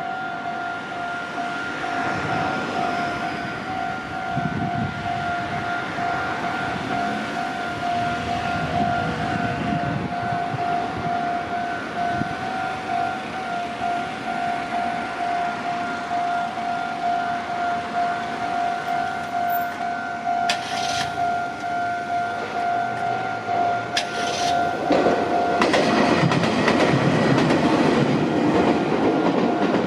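Japanese level-crossing warning bell ringing in a steady repeating pattern while a Meitetsu electric train approaches. Near the end the train passes over the crossing, its wheel and running noise growing loud.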